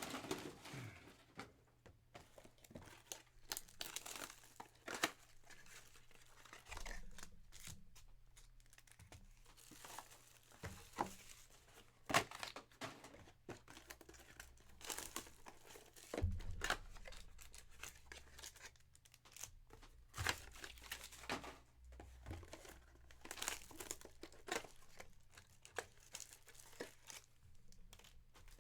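Plastic wrapping on packs of Panini Absolute football cards crinkling and tearing as it is opened, in faint irregular rustles and snaps, with the cards handled between them. A faint steady low hum runs underneath.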